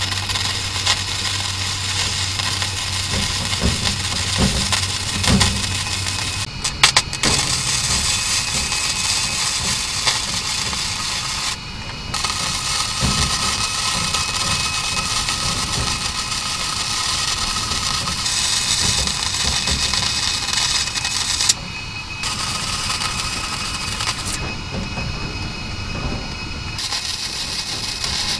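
Flux-core wire-feed arc from a Titanium MIG welder crackling and sizzling steadily as beads are laid, with a low hum under it for the first few seconds. The arc stops briefly several times between welds.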